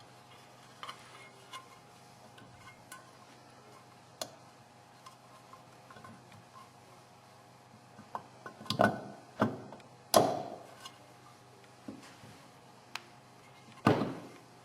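Light clicks and taps of a motorcycle stator and its screws being worked into position in the engine cover, with a few louder metallic clanks in the second half, the loudest near the end.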